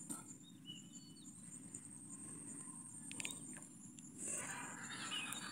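Quiet rural outdoor ambience: a steady high insect buzz with a few faint bird chirps, and a soft rustle starting about four seconds in.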